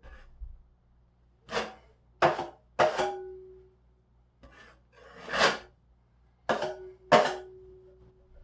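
Metal drywall knife scraping joint compound, about six separate strokes. After a few of them the blade rings with a steady tone that hangs on, longest near the end.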